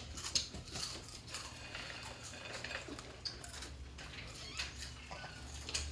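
Scattered light crackles and clicks of spicy rolled corn chips being picked off plates and crunched.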